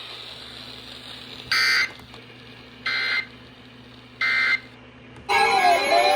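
Emergency Alert System end-of-message signal: three short, loud digital data bursts, about a second and a half apart, over a faint steady hum. Near the end, music with gliding, zig-zagging tones cuts in.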